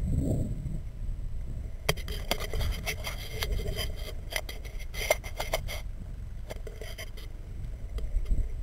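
Irregular sharp clicks and scraping of paragliding gear against a body-mounted camera, close to its microphone, over a low wind rumble. The clicks come thick from about two seconds in until near the end.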